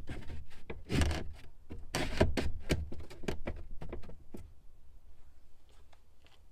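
OSB plywood boards knocking and scraping against each other as a loose board is set into a plywood box frame: a run of wooden knocks and rubbing, loudest about one and two seconds in, dying away after about four seconds.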